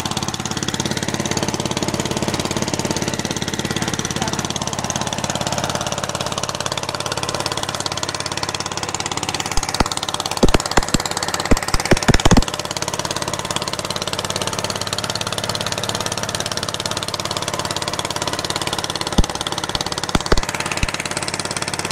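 Motorboat engine running steadily. A cluster of sharp knocks breaks in about ten to twelve seconds in, with a few more near the end.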